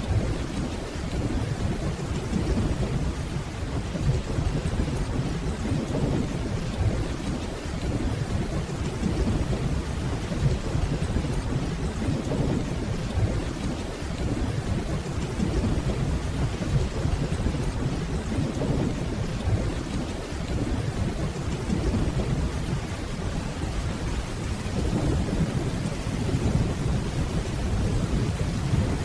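Steady rainfall with a low, continuous rolling rumble of distant thunder that swells and eases slowly.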